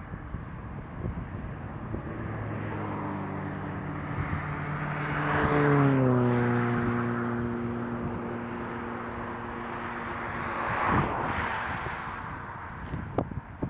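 Highway traffic passing close by. One vehicle goes past about six seconds in, its engine hum dropping in pitch as it passes, and a second goes by with a rush of tyre noise a few seconds later.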